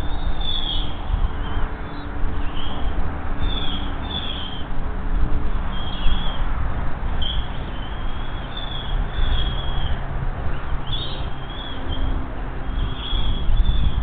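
Bald eaglets food-begging while being fed: short, high, thin chirps repeat every second or so, some falling in pitch, over a steady low rumble.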